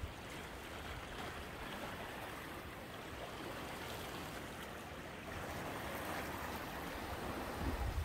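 Sea surf washing against a rocky shore: a steady wash of water that swells a little louder about five seconds in.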